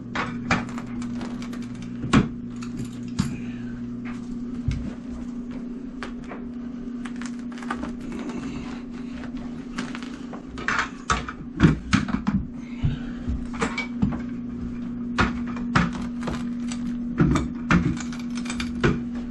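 Irregular clicks and knocks from a carpet power stretcher being set and worked, and from carpet being pressed onto tack strip, over a steady low hum.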